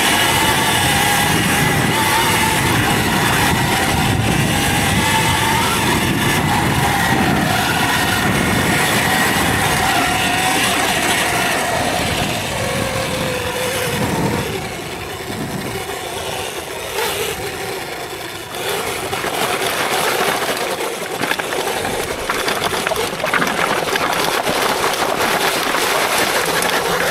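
Electric dirt bike on a trail: the motor's whine slides up and down in pitch with speed over a steady rushing noise. A little past halfway the whine falls in pitch and the sound drops quieter for a few seconds, then the rushing noise comes back rougher.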